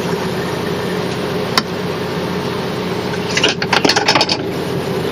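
Adhesive windshield magnet snapping onto the glass against the shade magnet outside: one sharp click about a second and a half in. A cluster of small clicks and scrapes from handling follows past the middle, over a steady background hum.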